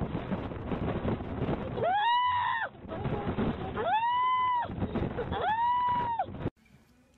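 A white-coated seal pup calling three times, each call lasting under a second and rising, holding and then falling in pitch, over wind rumbling on the microphone. The sound cuts off suddenly near the end.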